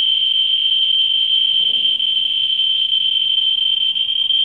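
Ludlum Model 3 survey meter's audio clicking so fast that the clicks merge into a steady high-pitched buzz. This is the sign of a high count rate, about 18,000 to 19,000 counts per minute, from radioactive torbernite/kasolite uranium ore held about six inches from the pancake Geiger probe.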